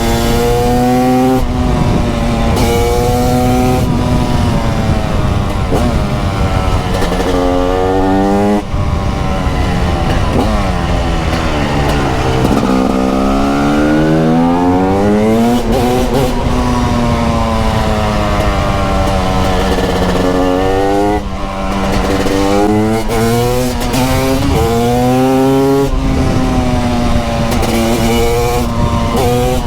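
TM SMR 300 supermoto's 300cc two-stroke engine under hard riding: the revs climb and drop again and again through gear changes, with a long fall in pitch as it slows and a climb back up around twelve seconds in.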